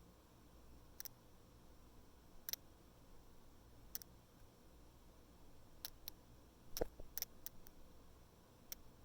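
Faint, irregular clicking from inside a Google Pixel 3's rear camera as the phone is moved, about ten clicks with a quick cluster past the middle. The clicking goes with the camera's focus wobbling, the fault the owner is showing.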